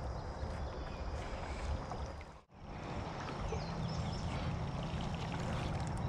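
Steady outdoor rush of shallow creek water with low rumble on the camera microphone. It drops out sharply for a moment about two and a half seconds in, then resumes.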